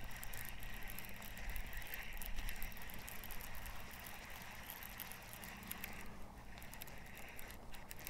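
Fishing reel being cranked steadily with a light rattle as a hooked bass is reeled in, over a faint steady hiss.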